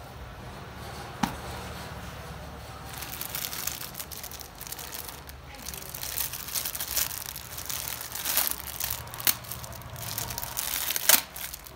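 Clear plastic bag crinkling and rustling as it is handled and pulled open, with a sharp click about a second in and several louder crackles, the loudest near the end.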